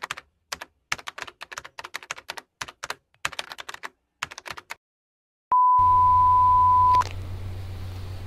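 Keyboard typing sound effect: rapid key clicks in quick runs for about four and a half seconds. After a short pause comes a loud, steady, single-pitched beep lasting about a second and a half that cuts off with a click, over a low hum and hiss.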